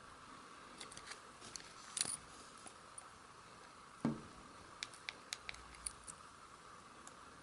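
Flathead screwdriver prying at a plastic dashcam housing: faint scattered clicks and ticks of the blade working the seam, with a sharper click about two seconds in and a louder knock about four seconds in, followed by a quick run of clicks.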